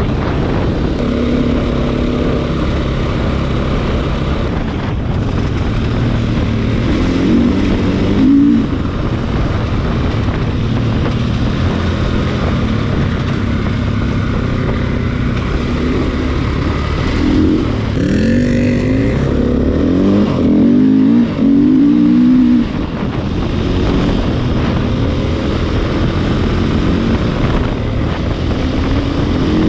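KTM EXC enduro motorcycle's single-cylinder four-stroke engine revving up and down while riding, with a run of quick throttle rises about 18 to 22 seconds in.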